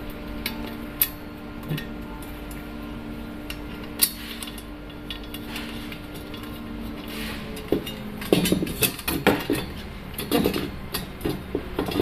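Stainless-steel rods and tubes of a washing machine rack clinking and knocking against each other as they are fitted together. There is a sharp click about four seconds in, and a busier run of knocks and rattles through the second half, over a low steady hum in the first half.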